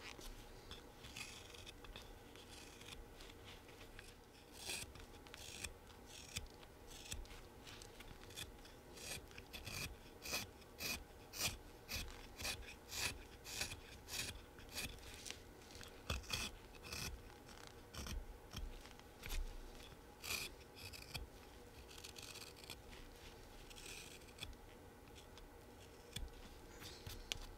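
Folding whittling knife paring thin slivers off a small wooden blank, shaping the stinger end: a long series of short, quiet slicing strokes, slow and careful, about one or two a second.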